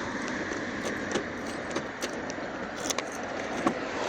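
Keys jingling, with a few sharp metallic clicks, over a steady background hiss.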